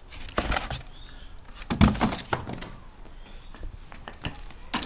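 Scattered knocks, clicks and rustles of parts and packaging being handled while unpacking a box, with a louder thunk a little under two seconds in.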